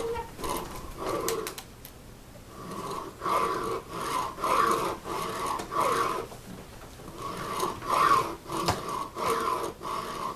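A file scraping back and forth on a hard deer-antler mandolin nut, cutting a string trough into it. The strokes come about twice a second, with a short pause around two seconds in.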